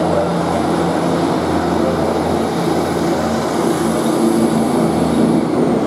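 Northern class 150 Sprinter diesel multiple unit moving past along the platform, its underfloor diesel engines running with a steady low drone.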